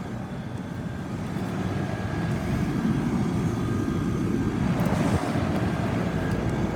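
Outdoor central air-conditioner condensing unit running: the condenser fan and compressor make a steady hum and rush with a faint steady whine, growing louder about two seconds in.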